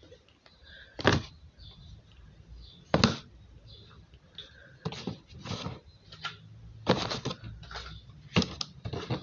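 Triangular paperboard juice packets dropped one at a time into a plastic storage bin, each landing with a sharp tap and a light crinkle. The taps come a couple of seconds apart at first, then quicker toward the end.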